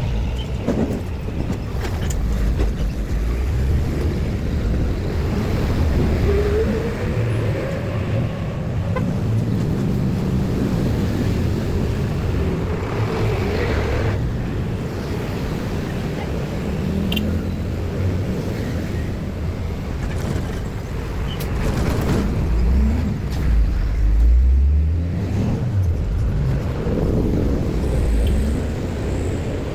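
Road traffic: motor vehicles running and passing by in a steady low rumble, with an engine's pitch rising and falling about a quarter of the way in.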